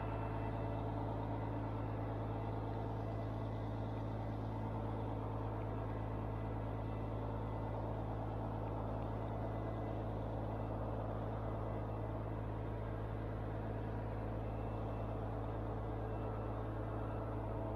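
Mobile crane's diesel engine running steadily, a constant low engine hum with no change in pitch.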